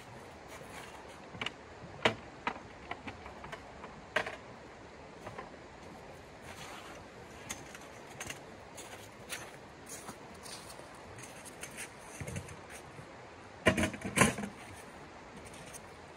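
Scattered clicks, knocks and rattles of camp gear being handled and carried into a tent, with a cluster of louder knocks about three-quarters of the way through, over the steady rush of a stream.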